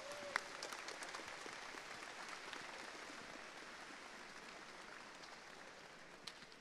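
Audience applauding: many hands clapping, slowly dying away.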